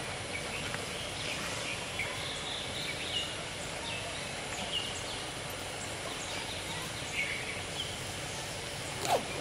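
Steady outdoor background noise with short bird calls scattered through it, and one sharp knock near the end.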